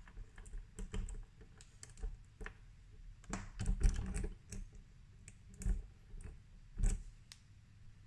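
Small metallic clicks and scrapes of a bent paperclip being worked inside an RV door-handle lock cylinder, hooking its retaining tab to free the cylinder. The clicks are irregular, bunched in a quick cluster about halfway through, with two sharper clicks later on.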